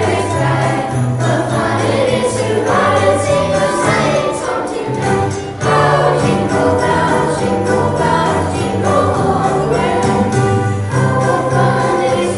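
Christmas music with jingle bells shaking steadily over sustained, changing bass notes.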